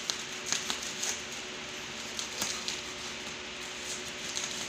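Knife cutting through the plastic wrapping and tape on a parcel: faint, scattered scrapes and crinkles.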